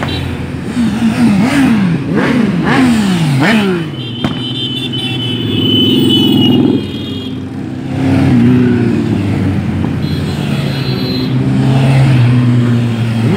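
A procession of motorcycles riding past one after another, engines blipped up and down several times in quick succession during the first few seconds, then running steadily with swells as each bike goes by.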